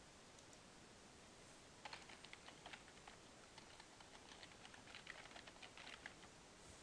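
Faint typing on a computer keyboard, entering a web link into a form field, in two short runs of keystrokes starting about two seconds in.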